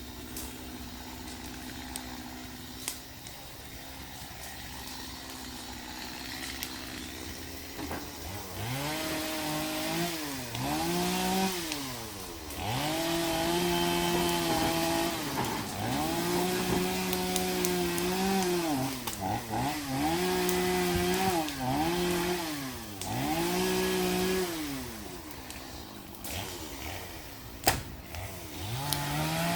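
Chainsaw engine idling low, then from about eight seconds in revved up again and again. Each rev is held at high speed for a second or more while it cuts into the tree, then drops back. There is a sharp knock near the end.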